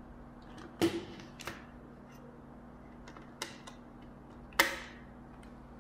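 Sharp plastic clicks from fingers handling the opened Sony ICF-C212 clock radio and pressing on its circuit board and buttons: two loud clicks, about a second in and near the end, with a few fainter ticks between. A faint steady low hum runs underneath.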